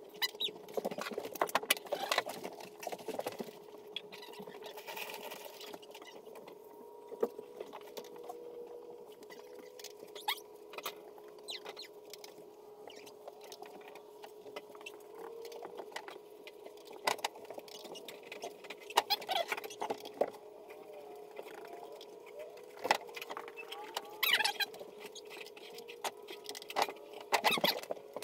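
Handling sounds of painting a room: scattered scrapes, taps and clicks of brush and roller work on the walls, over a steady faint hum.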